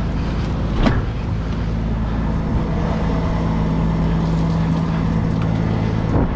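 A fishing boat's engine running steadily with a constant hum, with a sharp knock about a second in and another near the end.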